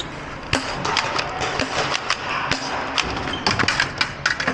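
Foam-dart blaster fire: a rapid, irregular run of sharp knocks and taps as darts strike wooden cover.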